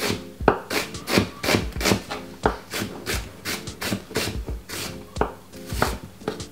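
Kitchen knife chopping a white onion on a wooden chopping board: quick, even strokes, about four a second.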